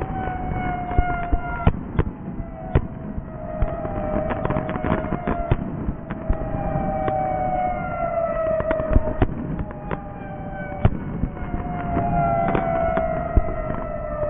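Fireworks sound effect: several long whistles, each sliding slowly downward in pitch and overlapping one another, with sharp crackling pops and bangs scattered through them.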